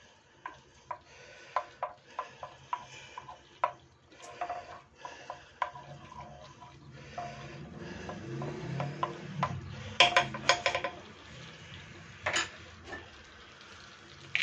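Wooden spoon stirring butter melting in olive oil in a terracotta cazuela, with many light clicks and taps of the spoon against the clay. A quick cluster of taps comes about ten seconds in.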